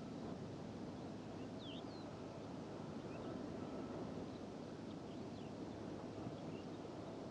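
Steady desert wind, a low even rush, with faint short bird chirps scattered through it, a few of them about two seconds in. A faint hum of distant machinery sits underneath.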